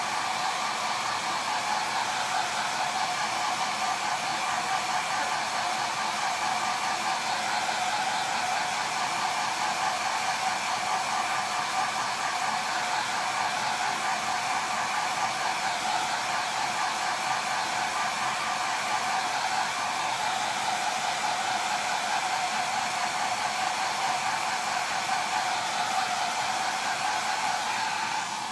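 Handheld hair dryer running steadily, blowing air on wet chalk paste to dry it, with an even motor whine; it switches off at the very end.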